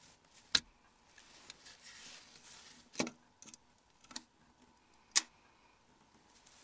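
A handful of sharp, separate clicks with faint rustling between, from a Nokia N81's engine module (main circuit board) being pushed and worked out of its frame by gloved hands.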